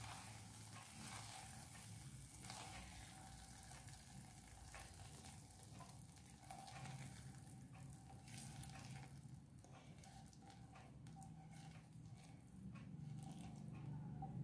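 Faint scraping and soft clicks of a spatula pushing a thick, sticky date-and-seed mixture out of a nonstick pan onto a steel plate.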